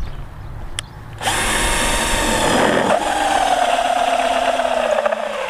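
Smash cordless drill with a hole saw cutting through sheet steel, starting about a second in: a loud grinding hiss with a whine that slides steadily down in pitch.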